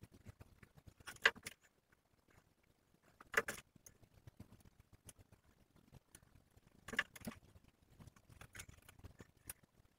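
Scissors snipping through hair, several separate short cuts a few seconds apart over a faint room background.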